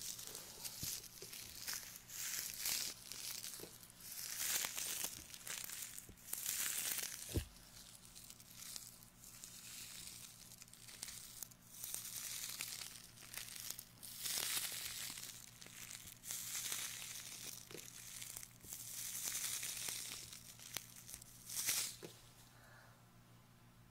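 Hands rubbing and brushing over a binaural microphone's ears, giving a long uneven series of close, scratchy swishes.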